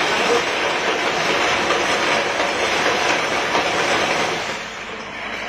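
Organic-waste pulping machine driven by a 1.5 hp electric motor, running with a dense, steady clattering rattle as it pulps waste; the noise drops off about four and a half seconds in.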